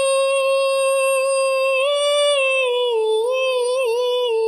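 A woman singing a Bengali song about her mother, holding one long sung note; from about two seconds in the note rises briefly, wavers through a few quick turns and settles on a slightly lower held note.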